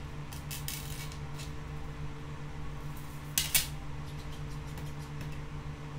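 Small clicks of bird identification leg rings being slid off a string and set down on a hard worktop, with a louder pair of clicks about three and a half seconds in, over a steady mechanical hum.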